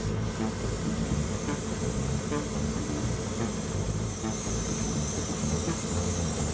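Airbrush hissing as it sprays semi-gloss clear coat onto small plastic model parts, the hiss getting stronger about four seconds in, over background music.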